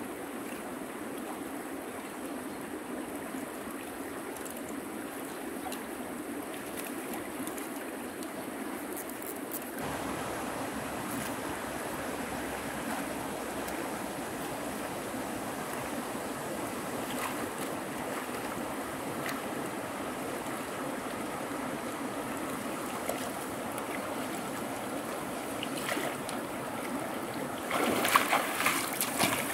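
A river running, a steady rush of flowing water. The sound shifts about ten seconds in, and near the end there is louder, choppier splashing.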